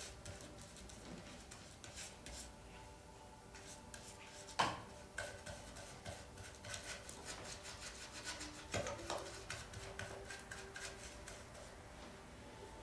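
Faint, rapid hand-worked rubbing strokes. There are two sharper knocks, about a third and about two-thirds of the way in.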